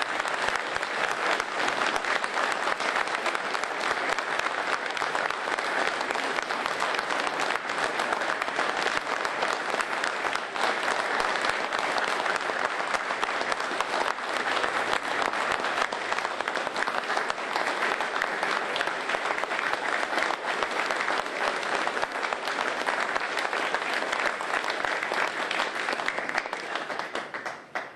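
Audience applauding steadily and at length, dying away near the end.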